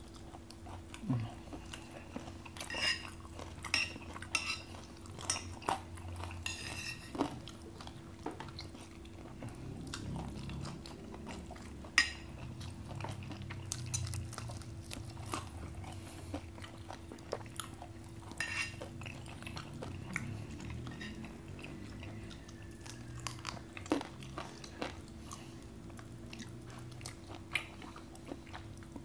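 Eating sounds picked up by a lapel microphone: chewing and crunching on crispy fried chicken, with scattered sharp clicks of a spoon against plates, the loudest about twelve seconds in. A steady low hum runs underneath.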